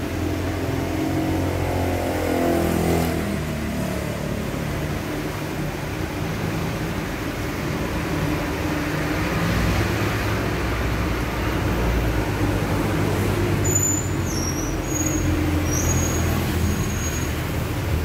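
LG commercial direct-drive front-load washer running mid-wash, a steady motor hum as the drum tumbles a sudsy load. A whine falls in pitch about two to four seconds in as the drum motor slows.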